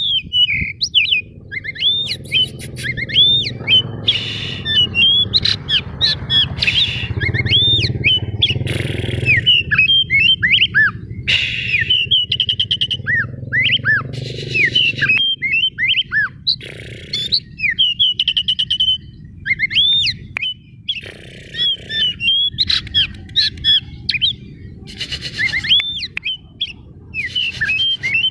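Oriental magpie-robin singing nonstop: quick whistled phrases that slide up and down, rapid trills and short rasping notes, the constant full song of a bird in top form. A low rumble runs beneath the song for roughly the first half.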